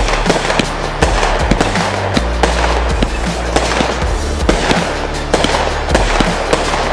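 A 36-shot 500-gram consumer fireworks cake firing: a rapid string of sharp shots and bursts, several a second. Background music with a steady bass line plays under it.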